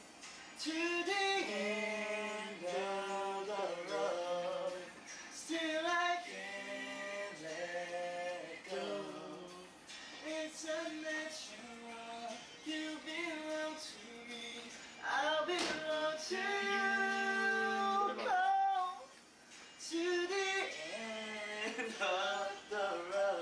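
A man singing an R&B ballad in sung phrases with long held notes and short pauses between them.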